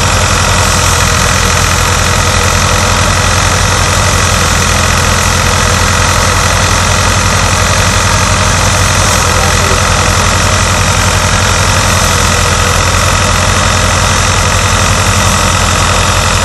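A tractor-driven wheat thresher working as straw is fed in: the tractor's engine running under load with the thresher's spinning drum, one loud, steady machine noise with a fast regular pulse underneath that does not change.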